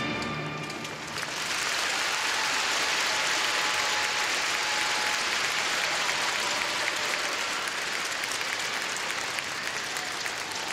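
Large arena crowd applauding: the last of the music dies away in the first second, then dense clapping swells about a second in and holds steady, easing slightly near the end.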